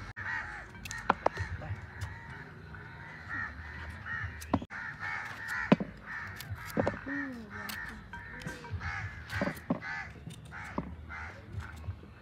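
Birds calling continuously and repeatedly in the background, with scattered sharp clicks and taps; in the second half these come from a knife slicing carrots over a plastic basin.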